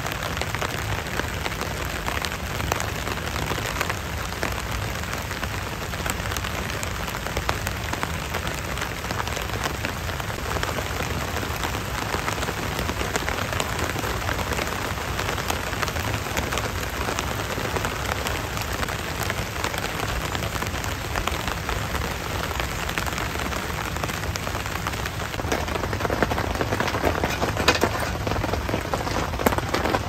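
Steady rain pattering on a tent tarp, an even hiss full of small drop ticks. About 25 seconds in it gets a little louder, with sharper, closer drops.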